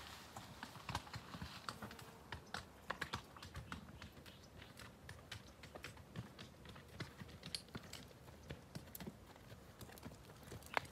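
Irregular crackling and clicking of dry brush and twigs, with hooves knocking on stones, as a horse is ridden through scrub on rocky ground; one louder knock near the end.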